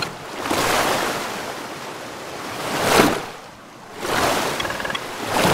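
Surf sound effect: waves washing in and fading away in several swells, the biggest about three seconds in, with a few short glittery tones about four and a half seconds in.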